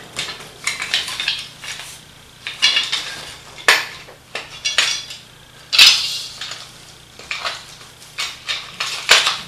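Wooden parts of a folding bow saw and its thin metal tensioning rod clicking, knocking and scraping as the saw is fitted together by hand. The knocks are irregular, the sharpest about four seconds in, about six seconds in and near the end.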